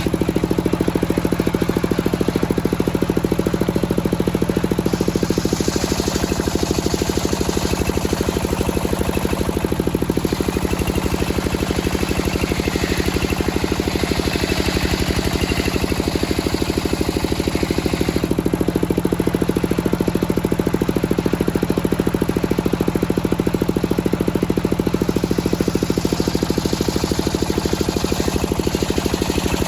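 Engine of a circular sawmill running steadily, with a higher hiss that swells and fades several times.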